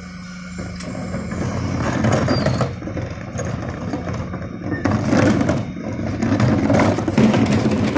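Refuse truck's DAF CF diesel engine revving up to drive the Heil Powerlink body's hydraulics, with scraping and clattering from the rear and from plastic wheelie bins being wheeled across tarmac. The noise swells about half a second in and comes in loud surges.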